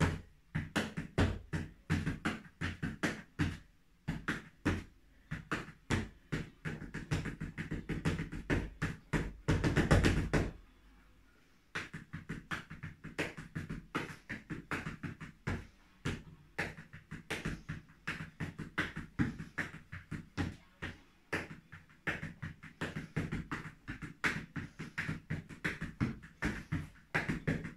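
Flamenco footwork: flat-soled shoes stamping and tapping on a wooden floor in a quick steady rhythm of about three strikes a second. About ten seconds in there is a louder rush lasting about a second, then a short pause before the steps pick up again.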